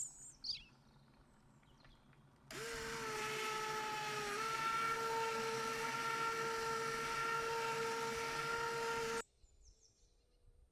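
Electric blender motor running in a steady whine for about seven seconds, stepping up slightly in pitch partway through, then cutting off suddenly.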